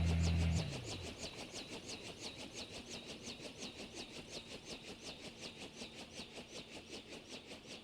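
A landed helicopter's engine hum cuts off abruptly about half a second in. What remains is a rhythmic swishing, about four to five strokes a second, fading slowly, typical of the rotor blades winding down after shutdown.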